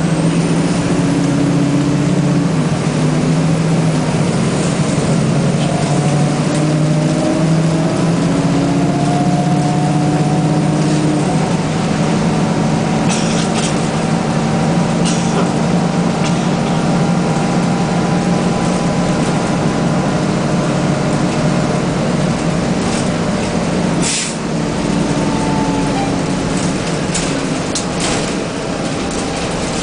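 Nova Bus RTS transit bus's Detroit Diesel engine and ZF automatic transmission running, heard from inside the bus. A whine rises in pitch over several seconds, then holds steady, and there is one sharp click about three-quarters of the way through.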